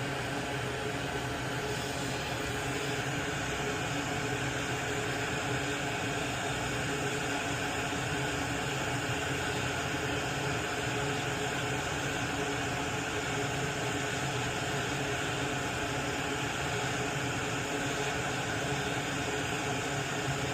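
A small fan runs steadily with an even hiss and a faint hum, unchanging throughout.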